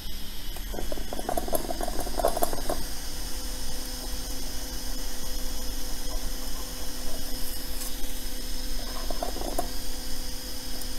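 Steady electrical hum of bench equipment, with two short bouts of scratchy scraping from a metal reballing stencil being handled on the board: one about a second in, lasting about two seconds, and a shorter one near the end.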